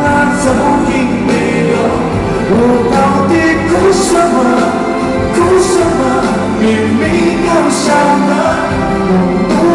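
A male pop singer sings a ballad live into a microphone over a full band, heard from the audience in a large arena. Cymbals crash now and then over the steady accompaniment.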